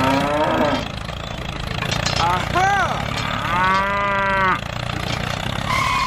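Cow mooing: a rising moo at the start, two short moos a little after two seconds in, then one long moo, over a steady low rumble.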